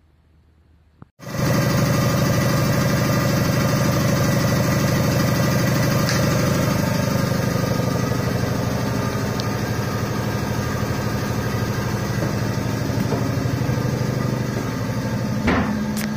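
Trolleybus electric air compressor switching on with a click about a second in, then running steadily with a low hum, fed from a home-made rectifier. A short knock near the end.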